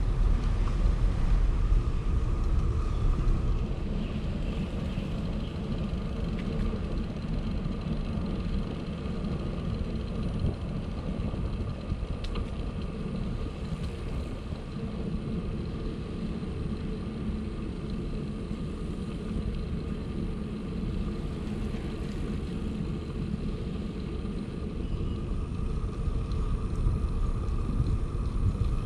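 Steady low rumble of wind buffeting the microphone and tyre noise from a moving bicycle, a little louder in the first few seconds.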